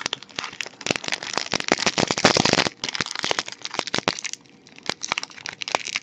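Foil wrapper of a Magic: The Gathering booster pack crinkling and crackling as it is handled and opened. The crackle is densest over the first few seconds, pauses briefly past the middle, and resumes near the end.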